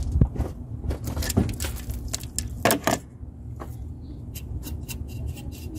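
Clicks and knocks of a plastic air intake duct being handled and pushed onto the throttle body in the engine bay. The clicks come as scattered knocks at first and then as a quick run of small clicks near the end, over a low steady rumble.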